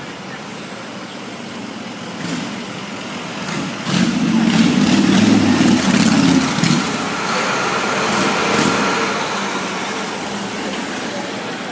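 Vehicles passing close by on a city street: a diesel minibus and a motorcycle, then a heavy truck. The engine rumble swells suddenly about four seconds in and eases off over the next few seconds.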